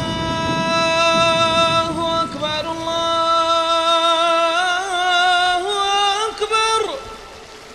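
A man's voice singing long, wavering held notes in a melismatic line, stepping up in pitch toward the end and breaking off about seven seconds in. A quieter steady rushing follows.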